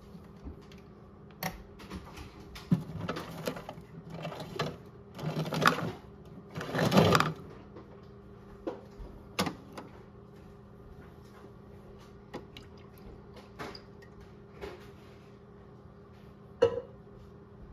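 Toy washing machine running: its small motor hums steadily as the drum turns, and water sloshes and splashes around a plush toy, in a series of loud swishes between about three and eight seconds in, with scattered clicks from the drum.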